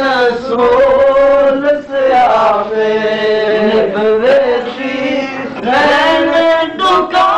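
A man singing a Punjabi devotional poem unaccompanied, in long drawn-out wavering notes, with short breaks between phrases.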